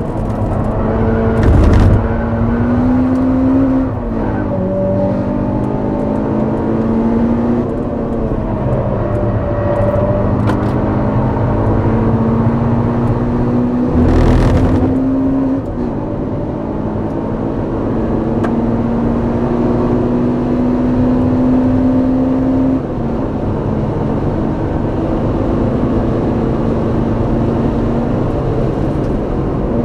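Honda Civic Type R EP3's four-cylinder engine through its exhaust, pulling hard on track: the pitch climbs slowly in each gear and drops at upshifts about four, fifteen and twenty-three seconds in. Two loud brief thumps cut across it, near two and near fourteen seconds in.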